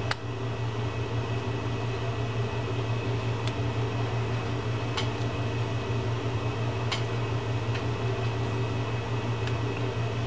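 Steady low machine hum in a small room, with a handful of faint light clicks from small metal fishing-reel parts being handled and fitted, the clearest right at the start.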